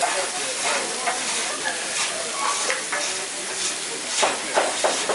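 Food sizzling on a hot flat-top griddle while a metal spatula scrapes back and forth across the plate, with a few sharper scrapes near the end.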